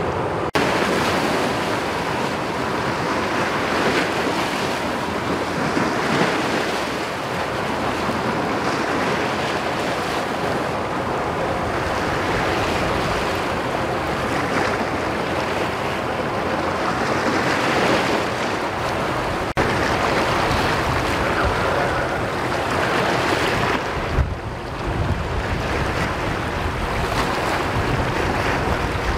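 Wind buffeting the microphone over the steady wash of sea waves: an even hiss with gusty low rumbles.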